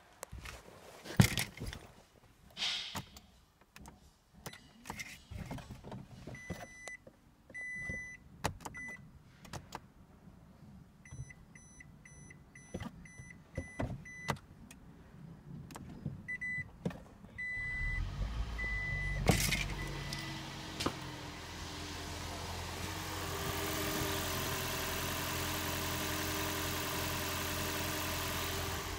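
Toyota Prius hybrid: clicks and knocks from handling the car, with runs of short repeated electronic beeps, then about 18 seconds in its 1.5-litre four-cylinder petrol engine starts and settles into steady running.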